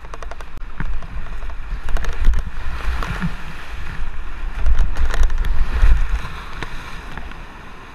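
Whitewater rapid rushing as a kayak paddles down through it, with paddle strokes and spray splashing over the action camera and a heavy low rumble of water buffeting the microphone. It is loudest about two seconds in and again from about four and a half to six seconds in, easing off near the end.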